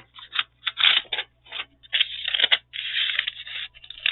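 Paper being handled and slid against paper, rustling and scraping in irregular bursts, with one longer scrape about three seconds in.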